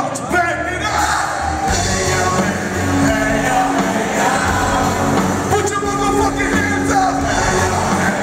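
Live band music with a male lead singer and electric guitars, loud and continuous, with a few shouts from the audience.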